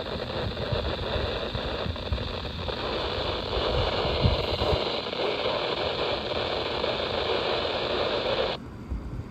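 Radio receiver hissing with static on a weak or empty channel, with uneven low thumps underneath. The hiss cuts out suddenly near the end.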